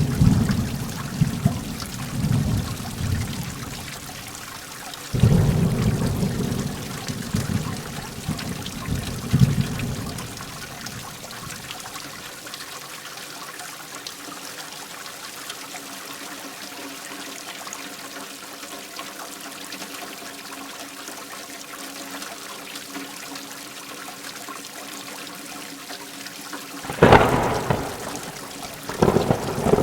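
Heavy rain falling steadily, with thunder rumbling low through the first ten seconds or so. Near the end a sharper, louder thunderclap cracks, followed by another rumble.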